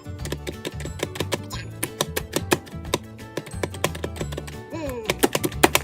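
Background music with a bass line and a busy, clicking beat.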